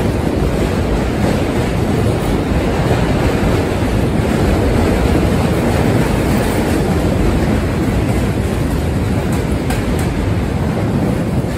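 A Budd R32 subway train rolling past on a steel truss bridge: a loud, steady rumble of wheels on rail and the bridge structure. A few faint clicks come about nine seconds in.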